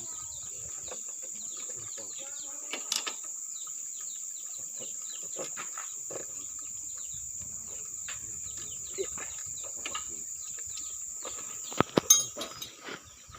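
Steady high insect drone with scattered light metallic clinks and taps from work on a motorcycle's slack drive chain. A few sharper knocks come near the end.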